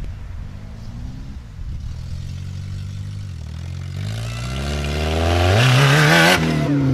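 Lifted Honda Civic sedan's engine accelerating, its note climbing steadily for a few seconds and getting louder, then dropping sharply near the end.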